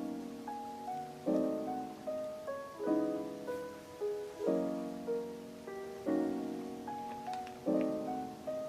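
Soft piano background music, a new chord struck about every second and a half with a simple melody over it.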